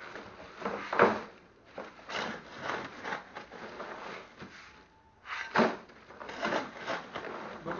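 Crushed ice being scooped and packed in a plastic-lined tub while re-icing fish: a run of irregular crunches, knocks and plastic rustling, loudest about a second in, with a short lull near the middle.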